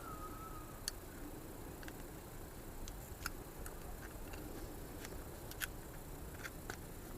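Scattered light clicks and ticks, about ten at uneven spacing, from small parts of a seatbelt retractor being handled and worked with a metal pick tool.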